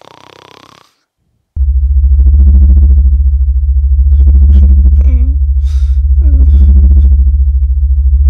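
A loud, low electronic drone that starts abruptly after a moment of silence, pulsing quickly and swelling roughly every two seconds, with a couple of falling sweeps over it.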